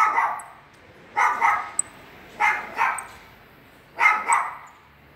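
A dog barking repeatedly, in quick double barks about every second and a half, four times.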